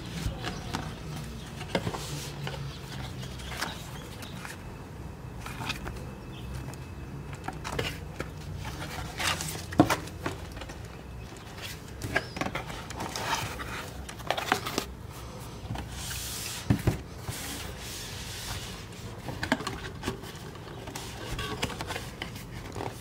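Cardboard lens box and its inner packaging being handled and opened by hand: flaps and card inserts scraping, tapping and rustling in many short sounds, with a few sharper knocks, over a steady low hum.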